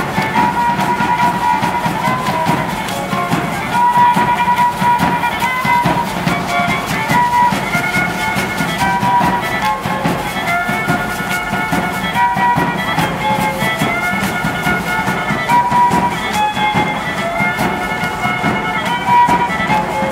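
Matachines dance music: a violin playing a repeating melody of held notes over a dense, steady percussive clatter.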